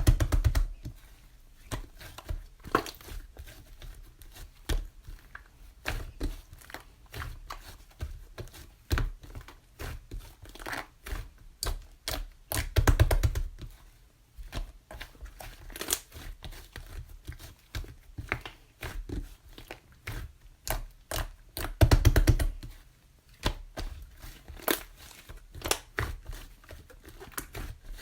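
Close handling sounds: scattered small taps and clicks with crinkling, and two longer, louder rustles, one about halfway through and one about three-quarters through.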